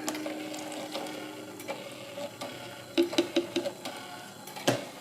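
Small 12-volt DC motor of a homemade mini washing machine running, turning its soup-can drum with a steady hum, with scattered clicks and a sharp knock near the end.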